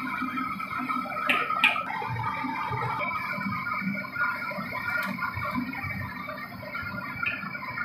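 Background music with plucked guitar. Over it, a ladle stirring in a wok clacks twice, about a second and a half in.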